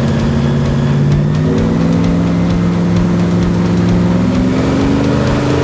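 Airboat engine and propeller running at full throttle, a loud steady drone whose pitch climbs as it revs higher, about a second and a half in and again near the end.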